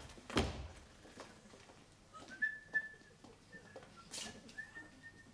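A person whistling a tune, starting about two seconds in and still going at the end. A single thump comes just before, near the start.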